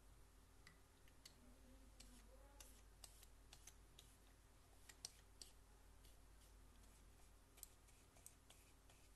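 Near silence: room tone with a faint low hum and a scattering of light, irregular clicks.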